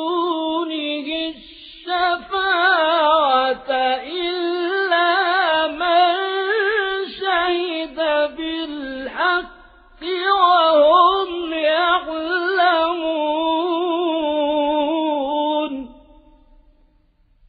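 A male reciter chanting the Quran in the melodic, ornamented mujawwad style: long held phrases with a wavering, trilled pitch, broken by a few short pauses. The voice stops about sixteen seconds in.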